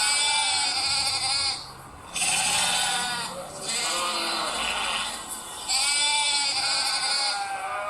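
Repeated animal bleating: loud, quavering bleats of about a second and a half each, coming every two to three seconds, with a couple of softer bleats in between.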